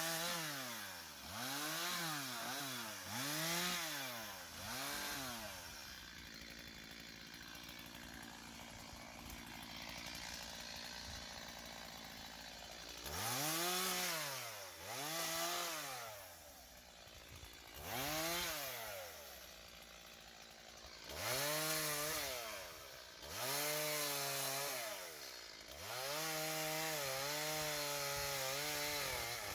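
Two-stroke chainsaw blipped up and down about once a second, dropping to idle for several seconds in the middle, then revved several more times before being held at a steady high speed near the end.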